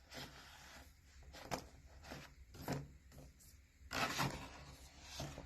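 Plastic gears in a spinning-gears board book turned by hand: faint, irregular clicking and rubbing, with a longer scraping stretch about four seconds in.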